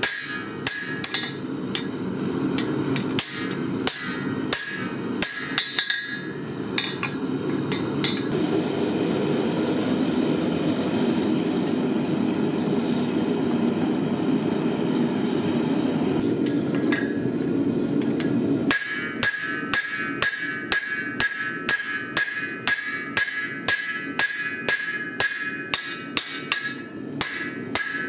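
Hand hammer striking red-hot steel from a lawnmower blade on an anvil, each blow ringing. For a stretch in the middle the blows stop and a forge's steady roar takes over while the blade reheats. The hammering resumes about two-thirds of the way in, at about two blows a second.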